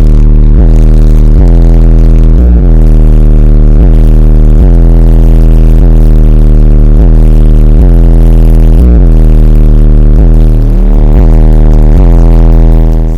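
Car subwoofers playing a bass-heavy track at extreme volume: one deep, sustained bass note with overtones, broken by short beat hits. It is loud enough to hold the recording at full level throughout.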